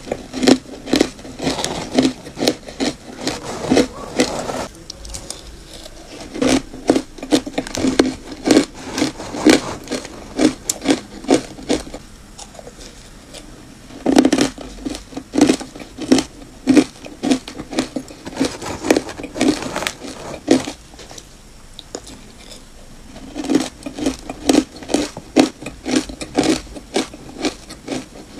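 Crunchy ice coated in matcha powder being chewed: quick, crisp crunches, two or three a second, in four runs with short pauses between.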